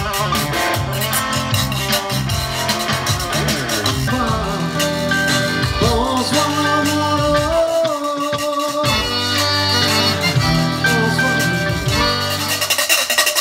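Live Cajun band music: sustained chords over a bass line, with the rasping scrape of a rubboard (frottoir). The low notes drop out near the end.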